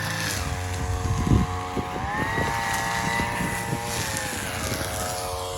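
Petrol string trimmer's engine running, revving up about two seconds in, holding the higher speed, then easing back down near the end. A sharp knock sounds about a second in.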